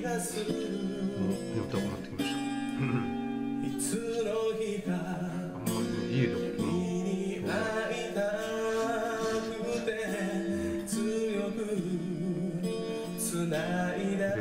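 Background song: strummed acoustic guitar with a singing voice.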